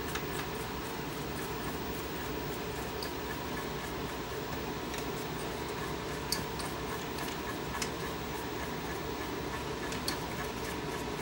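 Steady background hum with a few faint, sharp handling clicks and taps while the VCR's video heads are cleaned.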